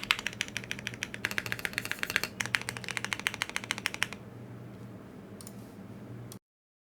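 Fast typing on a plateless Thera75 custom mechanical keyboard with Thic Thock Marshmallow linear switches: a quick, dense run of key clacks that stops about four seconds in, followed by a few single key presses before the sound cuts off.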